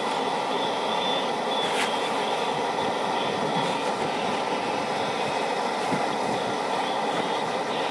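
Strong wind driving snow past a snow cave's entrance: a steady, dense rush with one sharp click about two seconds in.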